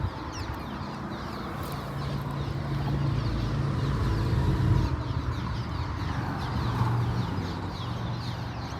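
Birds chirping continuously, many short quick falling calls, over a steady low rumble.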